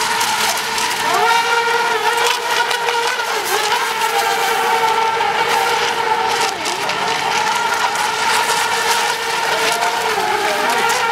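Several electric radio-controlled racing boats of the Eco Expert Junior class running flat out on 2–3 cell LiPo power, their motors and propellers whining together at a few steady pitches. The pitches dip and recover briefly now and then, over a hiss of spray.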